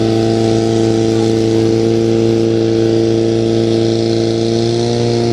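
Portable fire pump engine running steadily at high revs, pumping water through the charged hoses.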